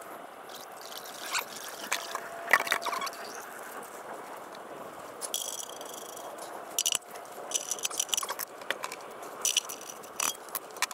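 Irregular metallic clinks, knocks and scrapes with brief ringing notes, from hand and tool work at the drain plug of a mini digger's engine sump, over a faint steady hiss.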